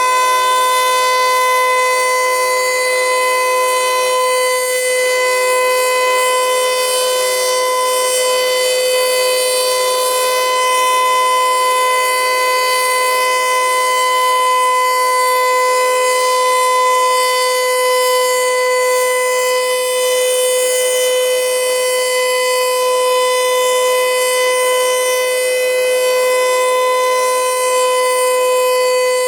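Federal Signal Eclipse 8 electronic outdoor warning siren sounding a steady, unwavering tone for its test.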